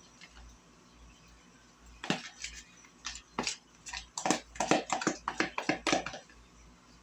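Kitchen utensils clicking and clinking: a quick run of about a dozen sharp clicks and taps between about two and six seconds in.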